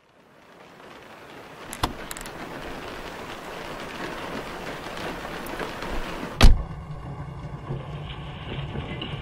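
Sound effects opening a lo-fi track: a steady hiss fades in from silence, with a click about two seconds in and a heavy thump about six and a half seconds in. After the thump, low sustained music notes begin under the hiss.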